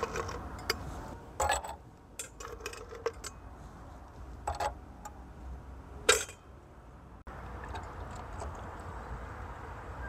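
Ice cubes clinking as they are taken from an ice container and dropped into a stemmed glass: a handful of sharp, separate clinks, the loudest about six seconds in.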